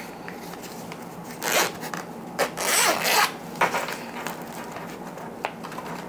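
Zipper on a black fabric notebook folio being unzipped in a few quick pulls, the longest about three seconds in, followed by a couple of light handling sounds.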